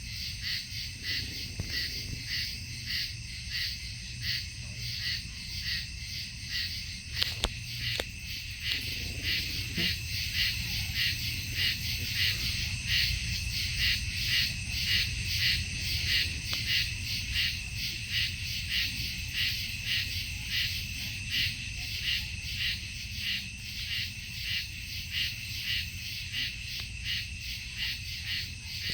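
A chorus of night insects chirring in a rapid, even pulse, over a steady low rumble. A brief knock comes about seven seconds in.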